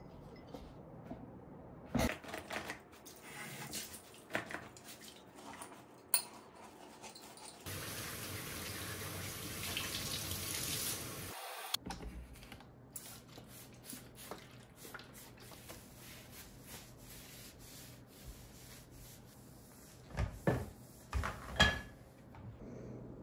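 Dishes and cutlery clinking as a table is cleared, then a kitchen tap running for about four seconds. After it stops, there is quieter wiping on a gas stovetop with a few small knocks, and a cluster of sharper clicks near the end.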